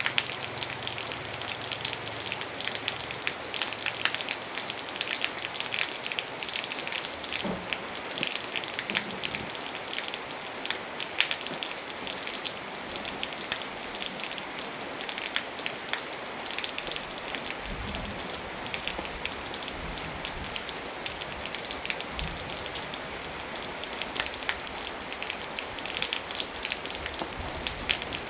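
Steady rain falling on a surface, a dense hiss of many drops with sharp individual drop ticks, and a few brief low thuds in the second half.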